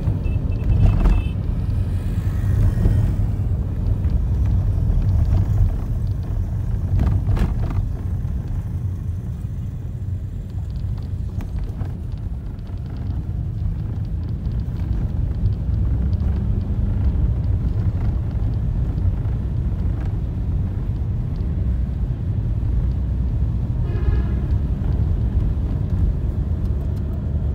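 Steady low rumble of road and engine noise heard from inside a moving car, with a few knocks in the first eight seconds.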